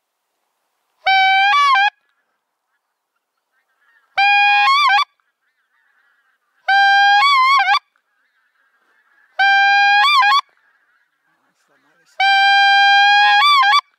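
Goose call sounded five times at even intervals. Each is a long steady honk that breaks upward into a short warble at its end.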